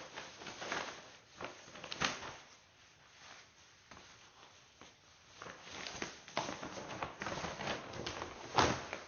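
Building and handling noises in a small room: irregular knocks and clattering, with a sharp bang about two seconds in and the loudest one near the end.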